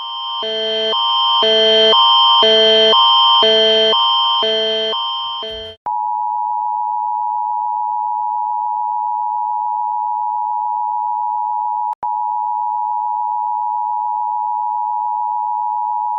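Emergency alert tones. First a synthesized alarm alternates between two chords about twice a second, swelling and then fading out about six seconds in. A single steady electronic tone follows, broken once by a brief dropout.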